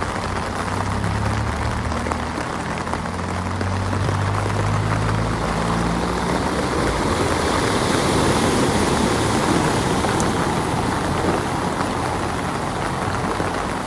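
Heavy rain and floodwater as a steady hiss, with a low engine hum for the first six seconds or so. Then a car drives through deep floodwater, its tyres throwing up spray, and the wash is loudest a little past the middle.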